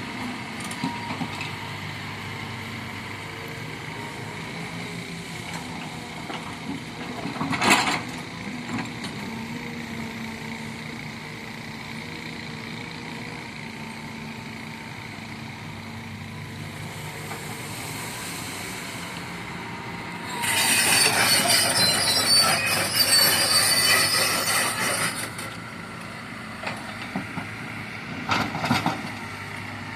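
Kobelco excavator's diesel engine running steadily, with a sharp knock about a quarter of the way in. About two-thirds in comes a loud, harsh, high-pitched grinding noise lasting some five seconds, followed by a couple of shorter knocks near the end.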